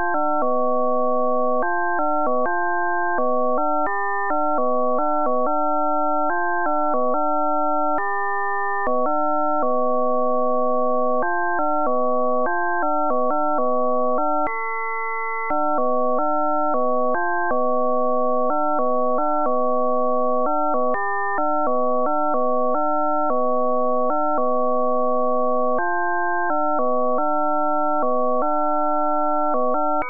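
SuperCollider-synthesized sonification of a year's calendar: a fast run of electronic blips, one per day, switching pitch every fraction of a second, higher for days with more events. Where several days in a row had the same number of events the blips run together into a steady held tone, as for about a second halfway through.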